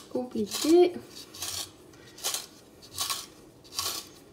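Hand-twisted Tupperware Handy Spiralizer with its spaghetti cone cutting a carrot into strands: about five short scraping strokes, one every three-quarters of a second, one per twist. The carrot is worn down to its end, where the cutting gets harder.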